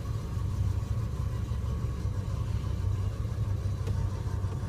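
Car engine running with a steady low rumble as the car backs up in reverse, with a faint click about four seconds in.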